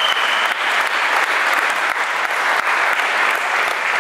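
Spectators applauding, a steady dense clapping that runs without a break.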